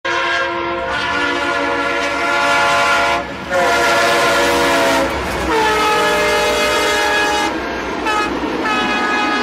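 Union Pacific EMD DDA40X diesel-electric locomotive's air horn sounding a chord in three long blasts as it passes, the pitch dropping as it goes by. Two short toots follow, then another long blast. A low rumble from the passing train runs underneath.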